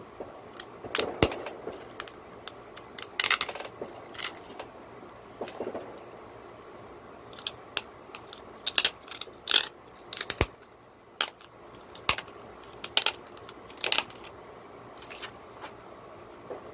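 Cherry quartz being knapped with a hand-held flaker pressed against its edge: about twenty short, sharp clicks and snaps at uneven intervals as small flakes pop off the stone.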